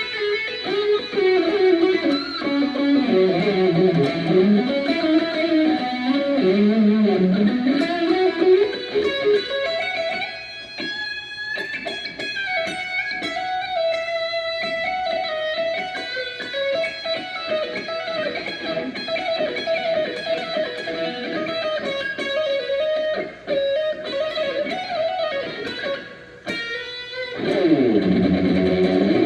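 Morris Hurricane guitar played solo to show its tone: a melodic line that wanders through lower notes, then moves up to a higher, sustained lead line, before dropping into a fuller, lower passage near the end.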